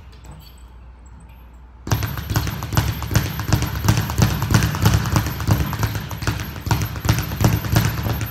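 Rapid, steady thudding footfalls of a person running, starting suddenly about two seconds in after a quieter stretch.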